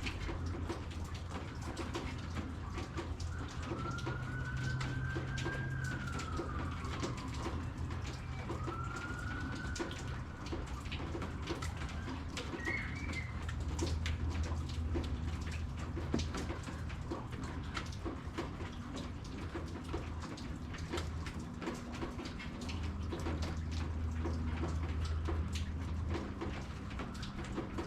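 Rain falling and dripping in a steady patter of drops, over a low steady hum. Twice, a few seconds in and again about nine seconds in, a long pitched call rises, holds and falls away.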